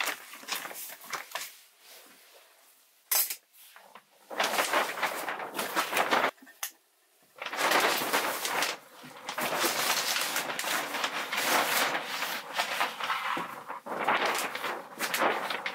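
Plastic vapor barrier sheeting rustling and crinkling in long stretches as it is handled and fitted, with a sharp click about three seconds in.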